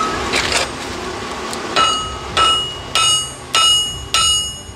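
Hand hammer striking a heated steel ax head on a steel bar, a steady run of blows starting about two seconds in, roughly one every 0.6 s. Each blow rings briefly with a clear metallic tone.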